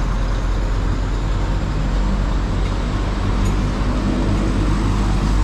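Mitsubishi Fuso Fighter's 6M60 turbo-diesel inline-six idling steadily, a loud even rumble.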